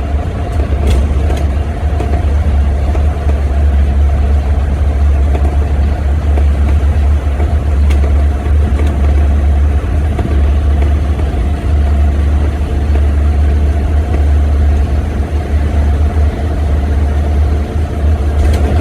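Steady low rumble of a vehicle's engine and road noise while driving, heard from inside the cabin, with a constant droning hum over it.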